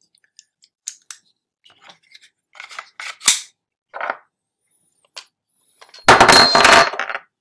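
Light clicks and knocks of a field-stripped Glock 44 pistol's polymer frame and steel barrel being handled and fitted together, the sharpest about three seconds in. Near the end comes a loud scraping rustle lasting about a second.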